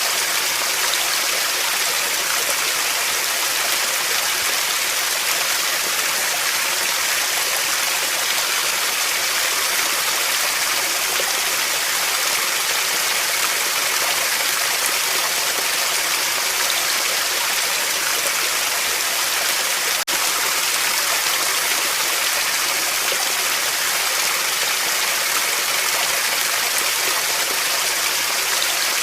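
Steady rushing of running water, even and continuous, with a split-second dropout about two-thirds of the way through.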